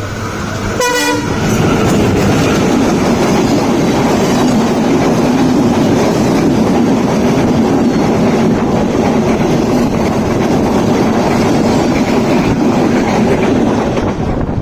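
Diesel-hauled intercity passenger train passing close at speed. A short horn blast comes about a second in, then a loud, steady rush of wheels and carriages that eases near the end.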